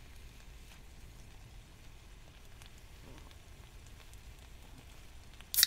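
Chicken and vegetables sizzling quietly in a camp frying pan, with small scattered crackles. Near the end there is a sudden loud sharp burst.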